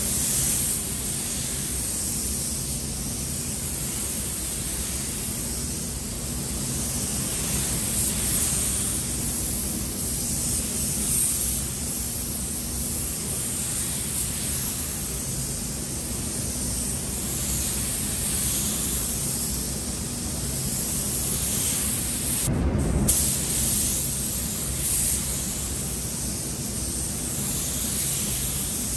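HVLP gravity-feed spray gun hissing steadily as it lays paint onto a steel truck tailgate in passes, over a steady low rumble. The hiss cuts out briefly about three-quarters of the way through, then resumes.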